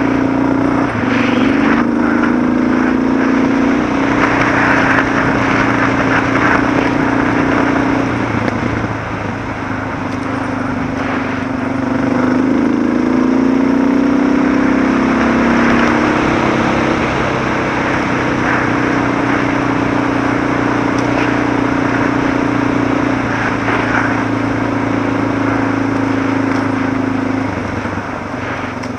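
Suzuki DR650's single-cylinder four-stroke engine running under way on a gravel track, with wind and road noise. The engine eases off about eight seconds in and pulls again a few seconds later.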